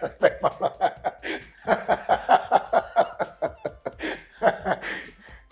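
Two men laughing together, in quick repeated bursts of laughter that die down near the end.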